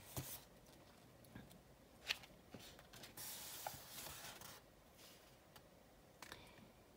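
Faint rustling and rubbing of a paperback booklet's pages as hands hold it and press it open, with a couple of soft ticks and a longer rub in the middle.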